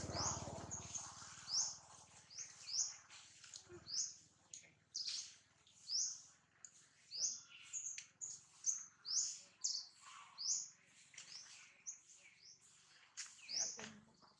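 A small bird chirping over and over in short, high notes, about one or two a second.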